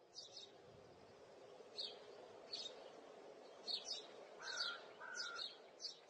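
Faint birds chirping outdoors: repeated short, high chirps, with two longer, lower notes a little past halfway, over a quiet steady background hush.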